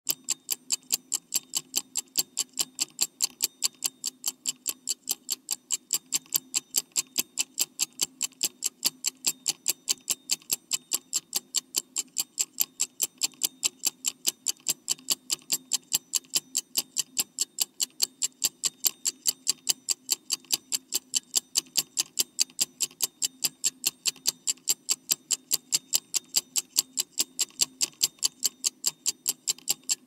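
A clock ticking fast and evenly, several sharp ticks a second, over a faint low hum.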